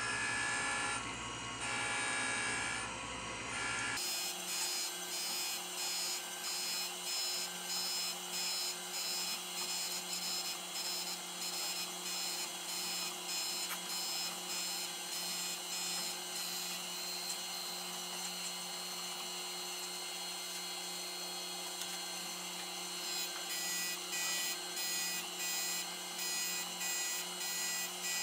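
Taft-Peirce surface grinder grinding a steel vise jaw: a steady motor and spindle hum with the grinding noise rising and falling in a regular rhythm as the table carries the jaw back and forth under the wheel.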